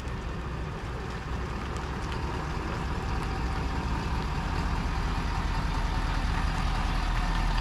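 Ford Super Duty pickup truck engine idling steadily, a low rumble that grows gradually louder.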